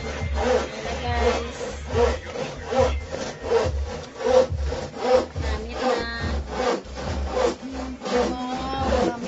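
A metal spoon scraping around a wok as a thick cream sauce is stirred, in a steady rhythm of about two strokes a second.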